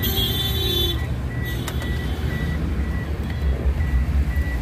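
A vehicle's electronic warning beeper gives short, evenly spaced single-pitch beeps about twice a second over a steady low rumble. A brief high ringing tone sounds in the first second.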